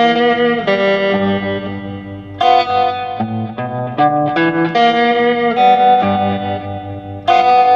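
Electric guitar, a Stratocaster-style solid-body, playing slow chords, each struck roughly once a second and left to ring.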